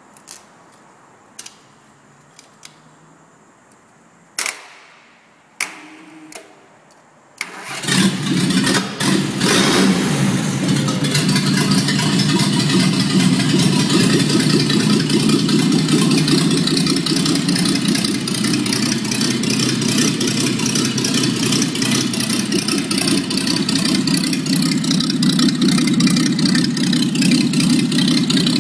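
Freshly rebuilt Willys BF-161 inline-six engine: a few short clicks and bursts, then it starts about seven and a half seconds in and runs, unevenly for the first couple of seconds and then steadily.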